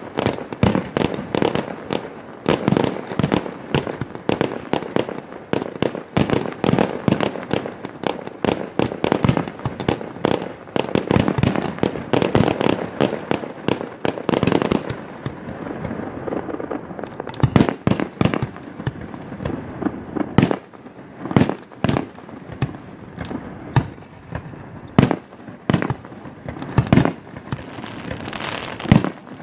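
Fireworks display: aerial shells bursting in rapid succession, many sharp bangs a second for about the first half. After that come separate booming reports spaced roughly a second apart.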